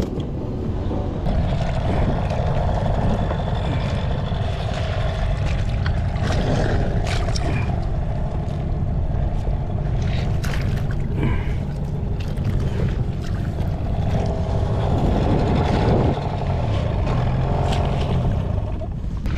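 Wind rumbling on the microphone and water lapping and slapping against a rubber inflatable boat, with scattered small knocks and splashes.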